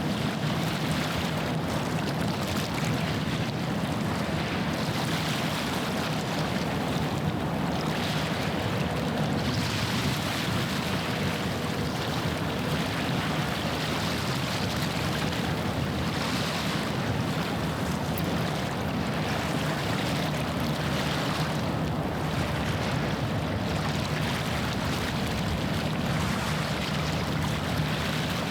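Waves washing against the shore, swelling every couple of seconds, over the steady low drone of a passing ship's engine.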